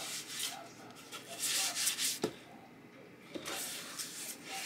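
Hands rubbing and smoothing decoupage paper down along the edges of a wooden cut-out, in several short rubbing strokes, with a single sharp click a little after two seconds in.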